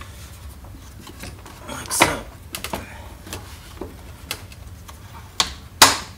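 Plastic air-filter housing lid being pressed down and its spring clips snapped shut: a sharp click about two seconds in, a few faint ticks, then two clicks close together near the end, the last the loudest.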